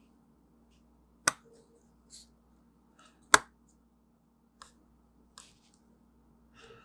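Two sharp clicks about two seconds apart, with a few fainter clicks and rustles, as the metal back cover of an original iPhone is pressed by hand to snap it back onto the phone.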